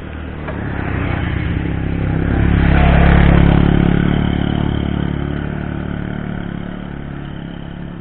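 A motorcycle passing close by: its engine grows louder, is loudest about three seconds in, then fades away.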